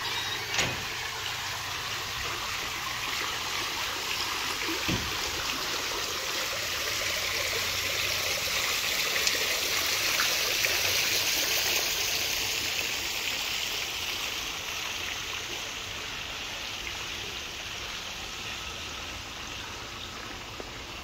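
Steady rush of running water, growing louder toward the middle and then slowly fading.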